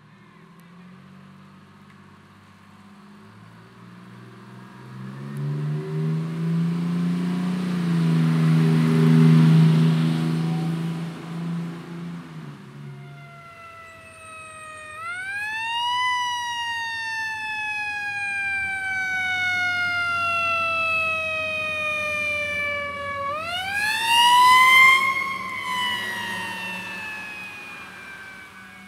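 A fire engine's engine revs up as the truck pulls away, loudest about ten seconds in and then fading. Then a fire engine siren winds up twice, each time rising quickly and then slowly falling in pitch, the second wind-up the loudest.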